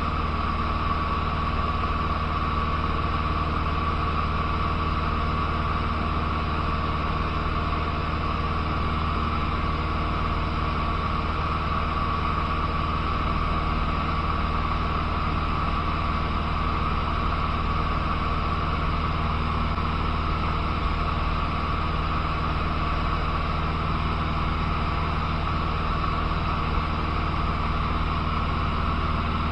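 Cessna 150's four-cylinder Continental O-200 engine and propeller running steadily in level flight, heard inside the cabin under a constant rush of airflow noise.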